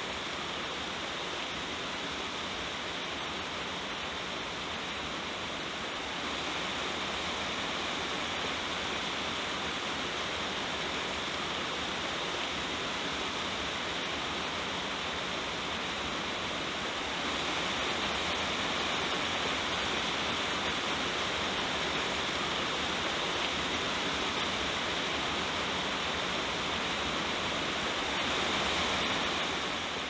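Waterfall cascading over rock: a steady rush of falling water, getting louder in steps about six seconds in and again about seventeen seconds in.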